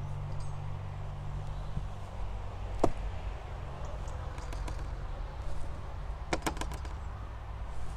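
Scattered light clicks and taps: a single one about three seconds in and a quick run of four or five near the end, over a steady low hum.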